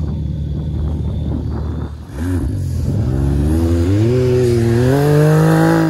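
Can-Am side-by-side engine running steadily at low revs. About two seconds in the sound drops briefly, then a side-by-side's engine revs up, its pitch climbing steadily for several seconds as it accelerates.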